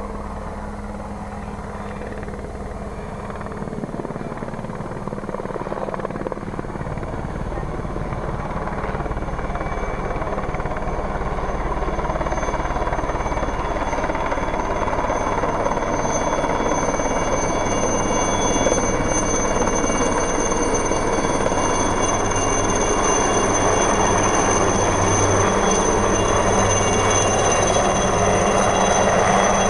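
Alouette III turbine helicopter flying in and descending to hover just above the ground. Rotor and engine noise grow steadily louder as it approaches, with a steady high whine over the rotor noise that strengthens as it nears.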